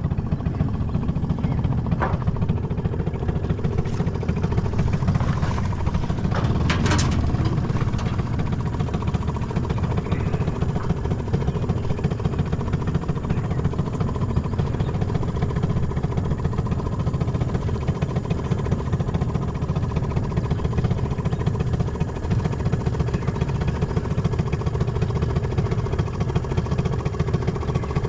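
Boat's outboard motor running steadily at low speed, with a few light knocks in the first seven seconds.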